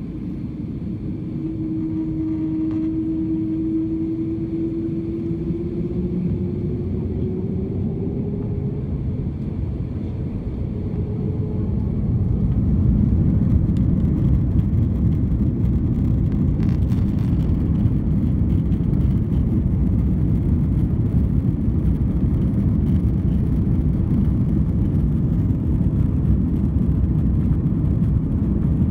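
Airbus A330-300 jet engines spooling up for takeoff: a steady tone rising slowly in pitch over a low rumble, then about twelve seconds in the rumble grows louder and holds steady as thrust is set for the takeoff roll.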